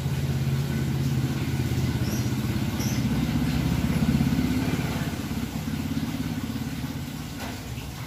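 A motor vehicle's engine running, swelling to its loudest about four seconds in and then fading, as a vehicle passing by would.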